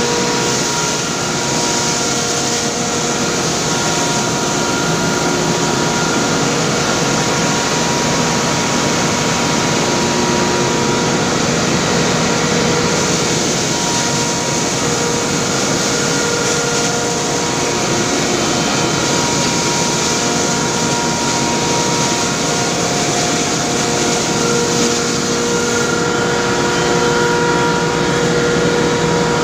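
Cotton seed and poultry feed grinder mill running steadily under load: a loud, even noise with constant whining tones.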